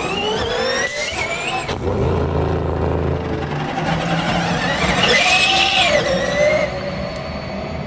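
Cadillac V-Series.R GTP hybrid prototype pulling away on electric power with a rising electric whine, then its 5.5-litre naturally aspirated V8 fires with a bang about two seconds in. The engine runs on with a deep rumble and a note that rises and falls as the car accelerates away.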